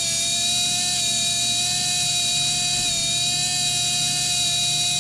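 A 2-pole brushless RC car motor spinning with no load, giving a steady high-pitched whine with a slight dip in pitch about three seconds in. The speed wavers because the motor is failing: the owner says its bearing is going.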